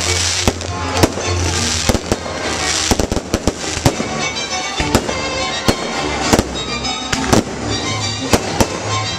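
A fireworks display, with aerial shells bursting in an irregular run of sharp bangs about once or twice a second, and crackling between them. Music plays underneath.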